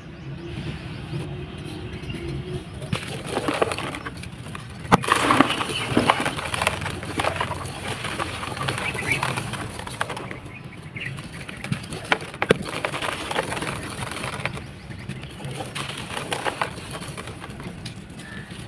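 Dry sand-cement balls crumbling in a tub: gritty crunching and crackling with sharp snaps, the loudest about five seconds in and another about twelve seconds in.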